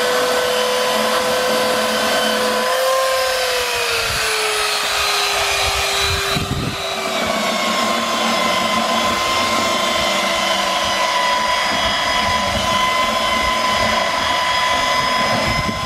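Warrior 7-amp 3 x 21 inch variable-speed belt sander running steadily while sanding deck boards, a continuous motor whine. Its pitch drops a little a few seconds in, with a short lull near the middle.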